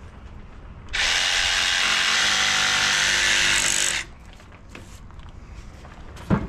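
Cordless jigsaw cutting through a composite hull planking strip along a marked line. It runs for about three seconds, starting about a second in and stopping abruptly. A couple of short knocks follow near the end.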